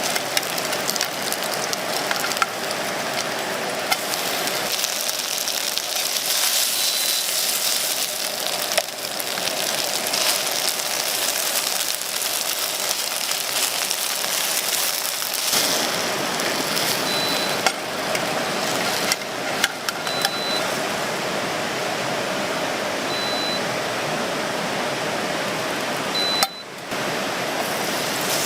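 Steady rain falling. Five short high beeps sound over it, spaced a few seconds apart.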